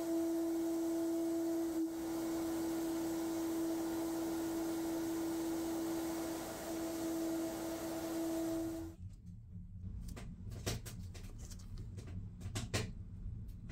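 Sandblasting in a blast cabinet: the steady hiss of compressed air and abrasive from the nozzle striking a metal bench part, with a steady droning tone alongside. The hiss cuts off suddenly about nine seconds in, leaving a low rumble with a few light clicks and knocks as a gloved hand handles the blasted part.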